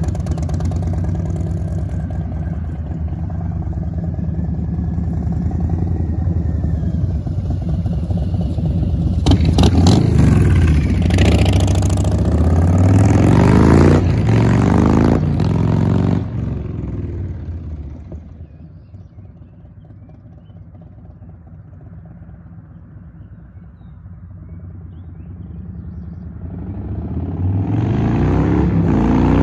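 Harley-Davidson Softail V-twin motorcycle being ridden. It revs up through the gears and grows loud as it comes close about ten to sixteen seconds in. It then fades into the distance and grows louder again near the end as it comes back.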